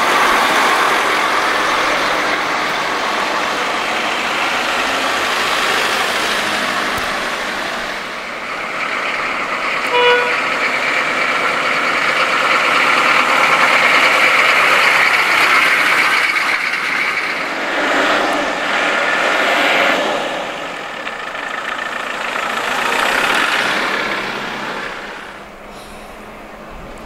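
Fire engines and an ambulance driving past one after another, their engines running under load, with one short horn toot about ten seconds in. The noise falls away near the end as the last vehicle moves off.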